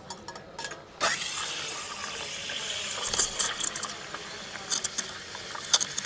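La Marzocco Strada X steam wand opening about a second in and steaming milk in a stainless steel pitcher: a steady hiss with bursts of crackling as the milk is aerated.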